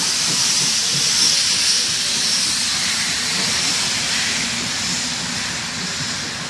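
Vintage passenger coaches of a steam train rolling past, wheels clattering irregularly on the rails under a steady hiss, easing off slightly toward the end.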